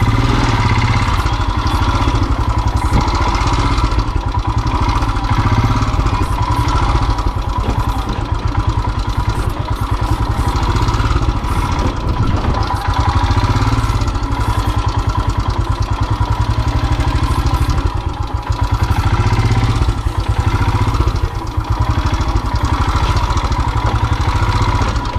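Royal Enfield single-cylinder motorcycle engine running with a fast, steady thump on a rough track, easing off briefly a couple of times in the last third.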